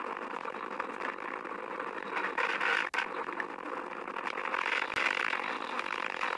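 Steady rushing and rattling noise from a bicycle-mounted action camera riding down a paved street, with a brief dropout about three seconds in where the clips are cut.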